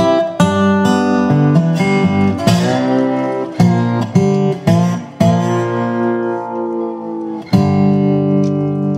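Background music: strummed acoustic guitar chords, the last one struck near the end and left ringing.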